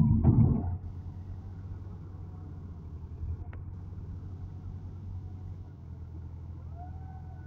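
Massey Ferguson tractor's diesel engine running steadily under heavy load as it drags a loaded soil trolley, its front wheels lifting off the ground. The engine is loudest for the first second, then settles to an even drone.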